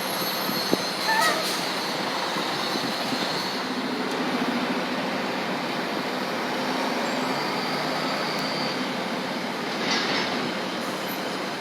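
Steady engine and road noise from transit buses running at the terminal, with a low hum in the middle and a few brief high squeaks about a second in.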